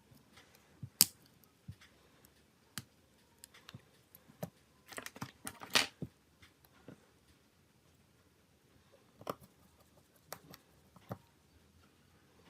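Scattered small clicks and taps of smartphone parts and tools being handled. The sharpest click comes about a second in, a quick run of clicks and scrapes about halfway through, and a few lighter clicks near the end.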